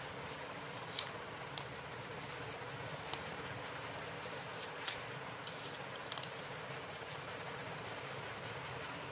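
A paper banknote being folded and creased by hand: faint rustling with a couple of crisp clicks, one about a second in and one about midway, over a steady background hiss.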